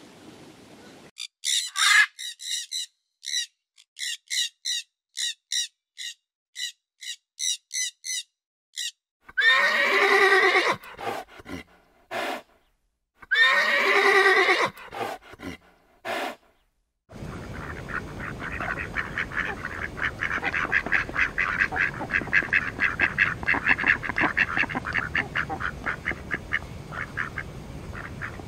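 A string of short high calls, then two long wavering horse whinnies a few seconds apart. From a little past halfway, a group of mallard ducks quacks in a rapid, continuous chatter over a steady background hiss.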